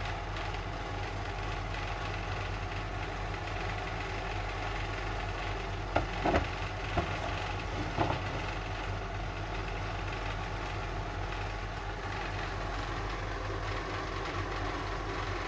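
A steady low mechanical hum throughout, with a few short hard knocks about halfway through as a cast resin ashtray is handled and set down on a wooden table.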